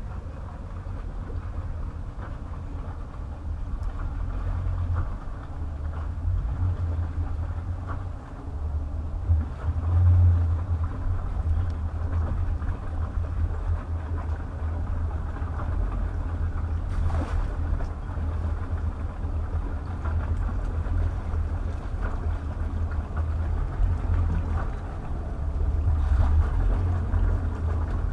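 Twin Volvo 5.7 V8 sterndrive engines of an express cruiser idling at low speed as it maneuvers and backs into a slip: a low rumble that grows louder near the end as the boat comes close.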